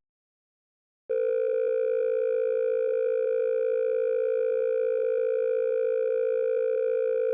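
A single steady, buzzy electronic tone: an emergency alert attention signal. It starts abruptly about a second in and holds one unchanging low pitch.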